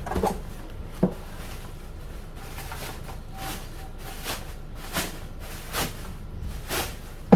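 Handling noises of pulling an RC monster truck out of its tight-fitting packaging: a string of short rustles and soft knocks about once a second, with one sharp knock near the end.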